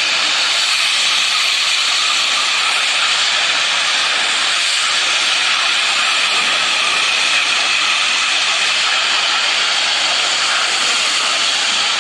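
Gas escaping from a damaged tanker truck in a loud, steady hiss that holds unchanged throughout.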